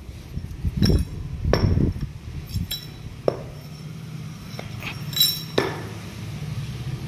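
Steel parts of a tractor power steering cylinder clinking and knocking together as they are handled, a series of sharp metallic clinks, some ringing briefly.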